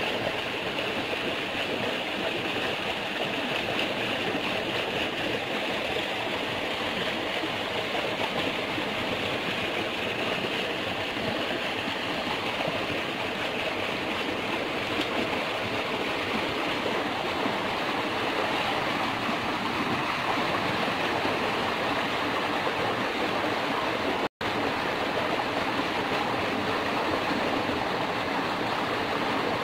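Water flowing steadily through a field irrigation channel into a wheat plot, a constant rushing with no break except a split-second dropout about 24 seconds in.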